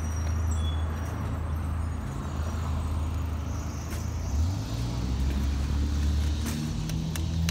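Car running while driving: a steady low engine and road rumble whose pitch shifts about four seconds in.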